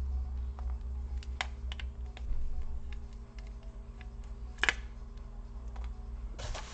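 Small scattered clicks and taps of a screwdriver and laptop parts being handled, with one sharper click about four and a half seconds in and a short rustling scrape near the end, over a low steady hum.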